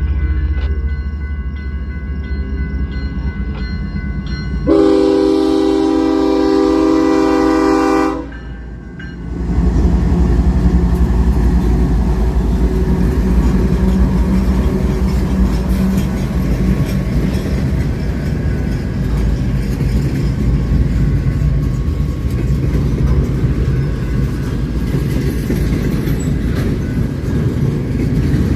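Train passing: low engine rumble, then one locomotive horn blast of about three and a half seconds starting about five seconds in. Then a loud, steady rumble of the train rolling by, with wheels clattering over the rails.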